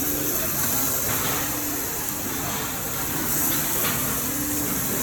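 Slices of beef tongue sizzling on a tabletop Korean barbecue grill: a steady hiss with a low background murmur.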